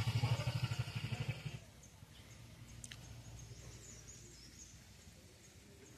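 Background music stops abruptly about a second and a half in. Faint outdoor quiet follows, with small birds giving short, high chirps now and then.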